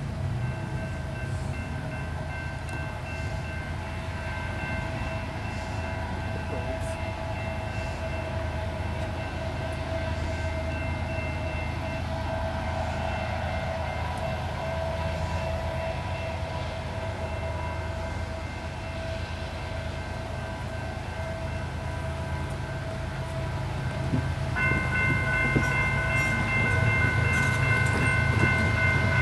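Approaching diesel freight locomotives: a steady low engine rumble, with a train horn sounding in long, held blasts over it. The horn and the overall sound grow louder about 24 seconds in as the train nears.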